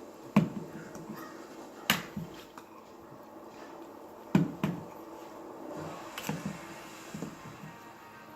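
Dog gnawing a hard horn chew, with sharp clacks as the horn knocks against the stairs: loud knocks about half a second in, near two seconds, a quick pair at about four and a half seconds and another near six, with softer scraping and clicking of teeth between them.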